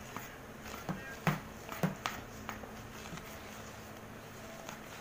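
Plastic spatula stirring batter in a plastic bowl: irregular knocks and scrapes against the bowl, the loudest few about one to two seconds in, lighter ones after.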